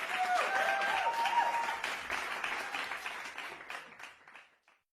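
Children cheering and clapping, with a few short shouts in the first couple of seconds, fading away to silence about four seconds in.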